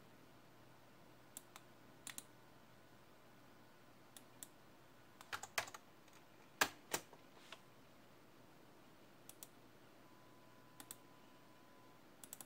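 Scattered clicks of a computer keyboard and mouse, a few isolated taps with a short cluster a little past halfway, over a faint steady background hum.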